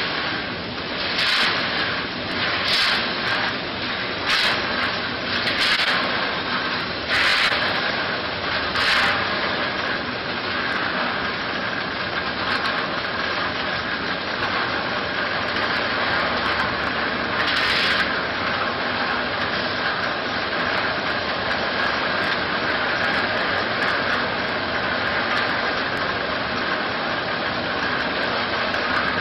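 Peanuts tumbling and rubbing inside a rotating 304 stainless steel coating pan, a steady rushing noise. Brief louder surges come about every second or two during the first nine seconds, and once more about halfway through.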